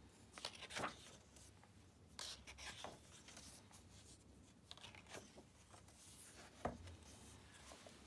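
Pages of a hardcover book being turned by hand: soft, faint paper swishes and rustles several times, with one short soft thump about two-thirds of the way through.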